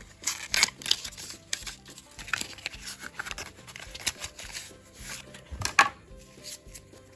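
Crinkling and crackling of a foil Pokémon booster pack and its cardboard mini box being handled and opened, the foil wrapper torn open, with the loudest crackle about six seconds in.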